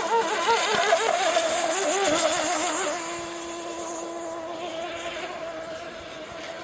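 OS 40 VRM two-stroke glow engine with a tuned pipe in an RC hydroplane running flat out, a high whine. For the first three seconds the pitch wavers quickly up and down. Then it settles into a steady tone that slowly fades.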